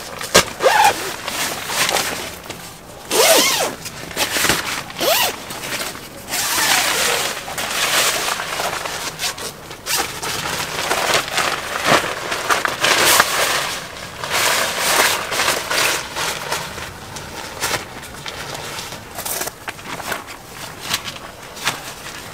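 Fabric and mesh door panels of a Bunker Dome tent rustling and flapping in repeated irregular bursts as they are handled.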